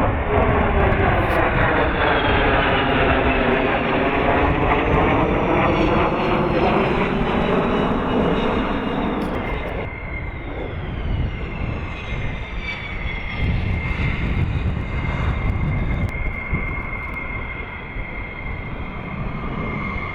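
Fighter jet engine noise as a jet passes close by, loudest for the first nine seconds or so. It then drops back to a quieter steady roar with a high, even turbine whine, while high-pitched tones slide downward in pitch.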